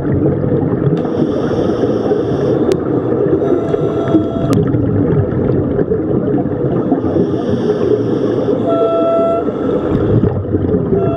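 Scuba breathing heard underwater: a steady rumble of exhaled bubbles with hisses from a regulator every few seconds. A short whistling tone sounds a few times, and there are a couple of sharp clicks.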